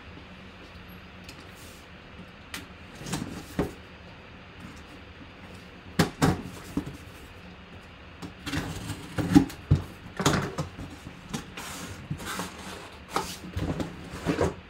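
Cardboard box handled and slit open with a knife along its taped top, then its flaps pulled open: scattered knocks, taps and scrapes of cardboard, busiest in the second half.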